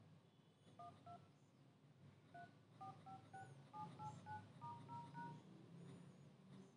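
Faint dial-pad key tones from a Redmi 6A smartphone's phone dialer: about twelve short two-note beeps as the keys are tapped one after another, in keypad order from 1 through 9, then star, 0 and hash.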